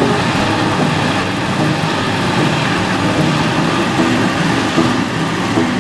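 HTC Ravager planetary floor grinder running its diamond tool discs over a concrete floor, a dense, steady grinding noise.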